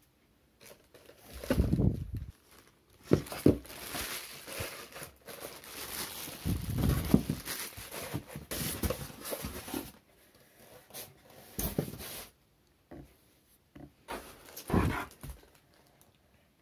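Clear plastic wrapping crinkling and rustling as it is handled and pulled off the juicer parts, with several dull knocks of the parts and packaging in the cardboard box.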